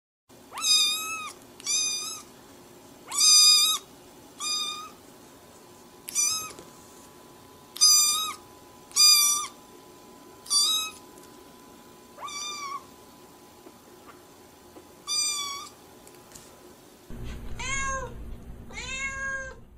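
Cat meowing over and over: about a dozen short, high-pitched meows, then two lower, longer meows that rise and fall near the end.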